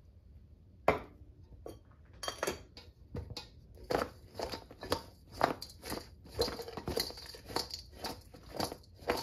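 Sliced eggplant being tossed by hand in a stainless steel bowl to spread the salt: the slices slap and slide against the metal in quick strokes, about two a second, starting about two seconds in. A single sharp knock about a second in is the loudest sound.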